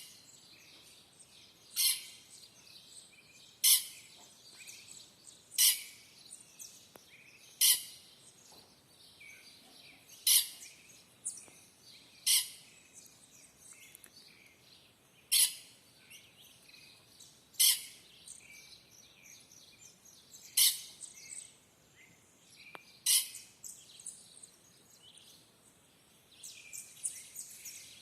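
Birds calling: one loud, sharp call repeats about every two to three seconds, with fainter chirping from other birds in between.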